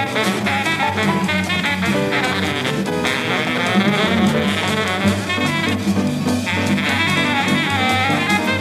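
Live jazz: baritone saxophone lead over walking bass and a drum kit with steady cymbal time.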